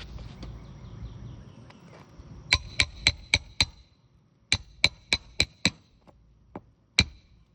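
Hammer blows on metal during roof shingle work: two quick runs of about five ringing strikes each, roughly four a second, then two single strikes near the end.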